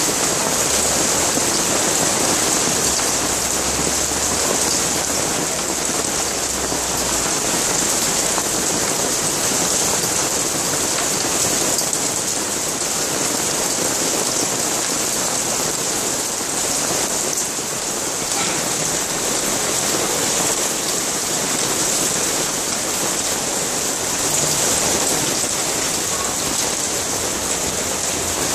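Cloudburst: heavy rain pouring down onto paving, a steady dense hiss.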